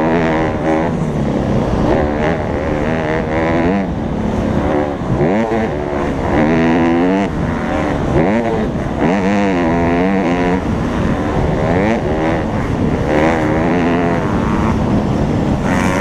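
Honda CRF150R's single-cylinder four-stroke engine racing, its revs climbing and dropping back over and over as the bike is ridden hard around a motocross track, with wind rumble on the microphone.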